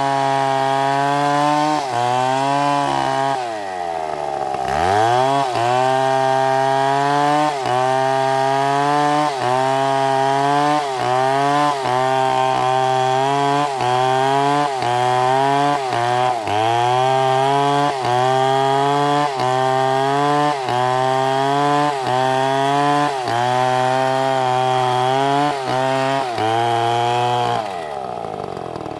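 STIHL chainsaw running at full throttle while cutting into a large log. The engine note sags under load and recovers roughly once a second. It drops and climbs back about four seconds in, then falls away near the end as the throttle comes off.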